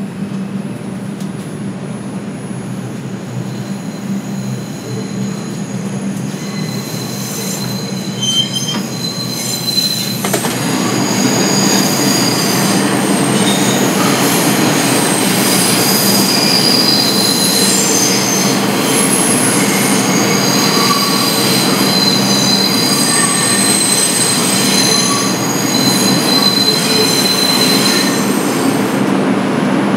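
R142 subway car running through the tunnel with its steady hum, while the steel wheels squeal against the rails. The shifting high-pitched squeals start about seven seconds in and get louder from about ten seconds in.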